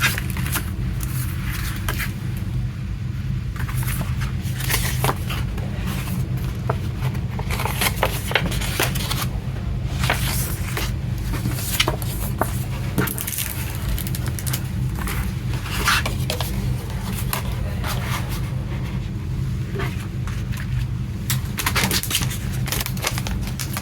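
Cardboard mini-LP sleeve and CD packaging being handled, with repeated scrapes, rustles and sharp clicks over a steady low hum.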